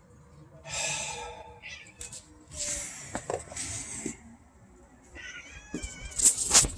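Domestic cats meowing at birds, several separate calls, with a wavering chirping call about five seconds in. A burst of loud noise comes near the end.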